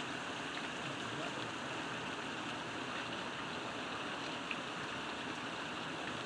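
Heavy rain pouring steadily onto trees and foliage, a dense, even hiss.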